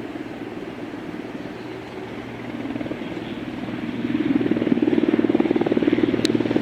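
Helicopter flying overhead, its rotor making a steady rapid chop that grows louder about four seconds in as it comes closer.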